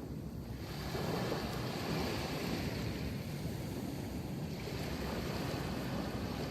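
Sea waves breaking and washing up a sandy beach: a steady rushing surf that swells about a second in as a wave comes ashore and stays full through the rest.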